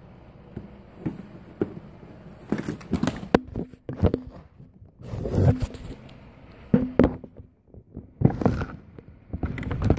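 A Beyblade being handled while its bolt is tightened: clicks, knocks and scrapes of small metal and plastic parts, in several short irregular clusters.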